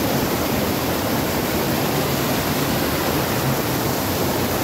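A mountain stream in flood, its water rushing and churning white over rocks in a steady, loud rush.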